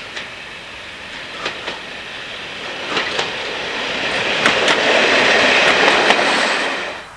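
A first-generation diesel multiple unit runs past close by, growing louder as it approaches, with its wheels clicking over rail joints in pairs. It is loudest as the carriage passes, then cuts off suddenly near the end.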